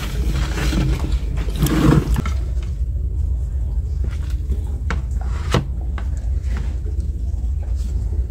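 Steady low rumble with a few sharp clicks and scrapes of hands picking at lobster and fish on plates; faint voices in the first two seconds.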